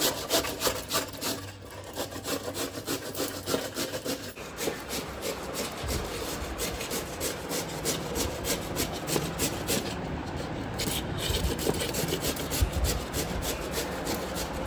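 A large ripe cucumber being grated finely on a stainless steel hand grater over a steel plate. The strokes come quickly and evenly, with a brief pause about two-thirds of the way through.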